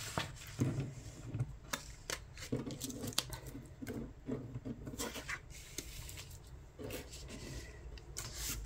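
Paper and card pieces (photocards, a sticker sheet, a folded poster) being slid and shuffled by hand across a wooden tabletop: soft irregular rubbing and scraping with light taps.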